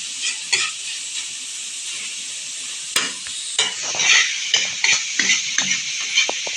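Grilled pork, garlic and onion sizzling in a pan of melted dairy cream, with a utensil stirring and scraping against the pan in frequent short clicks, busier in the second half.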